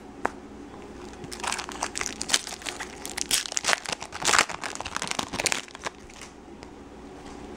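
Foil wrapper of a baseball card pack crinkling and tearing as it is ripped open by hand, with irregular crackles for several seconds that die down near the end.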